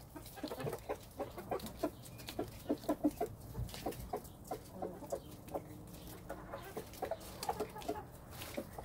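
Poultry clucking softly in short, irregular calls, several a second.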